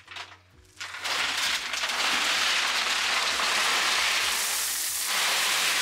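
Gravel pouring out of a tipped wheelbarrow onto a gravel bed. The steady, dense rattling rush starts about a second in and keeps going.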